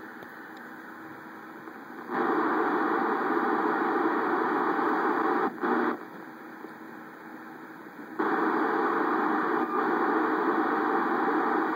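Communications receiver's FM audio hissing as it is tuned through the 250 MHz UHF satellite band. The hiss is quieter at first, jumps to loud static about two seconds in, drops back near the middle, and comes back loud about eight seconds in.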